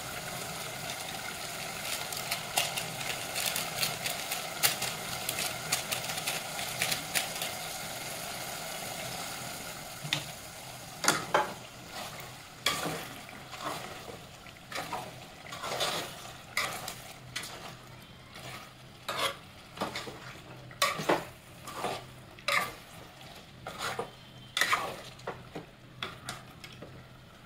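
A steel spoon stirring chicken curry in an aluminium pot while it fries. A steady sizzle fills roughly the first ten seconds, then fades, leaving repeated sharp scrapes and knocks of the spoon against the pot.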